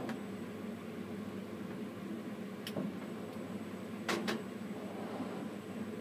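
Steady machinery hum heard inside a tower crane's cab, with a few sharp clicks, one a little under three seconds in and two close together about four seconds in.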